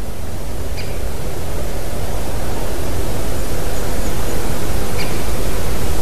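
Steady, loud rushing of wind on a treetop nest camera's microphone, swelling slowly. A few faint short bird calls come through, about a second in and again near the end.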